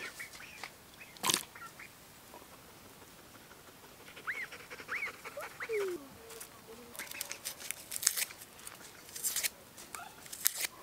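A single sharp knock, then a few short animal calls, then a run of dry papery crackling and clicks: red onion skin being peeled off with a knife.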